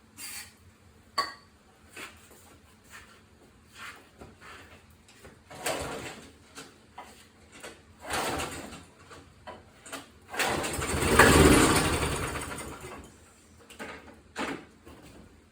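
Briggs and Stratton lawnmower engine being pull-started with its recoil cord on a squirt of starter fluid: handling knocks and cord pulls, then about ten seconds in it fires and runs loudly for two or three seconds before dying away. It is the first start after the spark plug was regapped to cure a no-spark fault.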